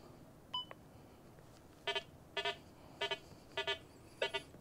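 Rutus Versa metal detector with the DD23 coil giving a short electronic beep about half a second in. Then come about six short, low, buzzy target tones, roughly two a second, as the coil sweeps over nails: the detector's iron responses, with IDs around −10.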